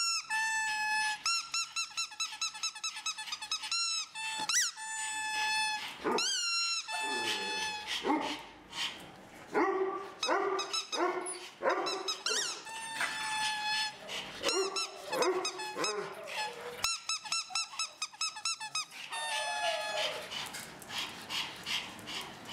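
Dogs playing, giving a stream of high-pitched squeaky yelps and whines: a rapid run of short cries at first, long rising-and-falling whines a few seconds in, then lower yaps and barks.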